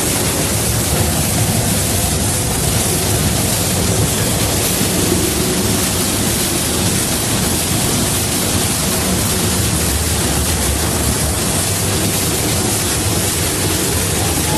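Steady, loud hissing roar inside the cab of the Disneyland Railroad's Ward Kimball steam locomotive, with a low rumble underneath.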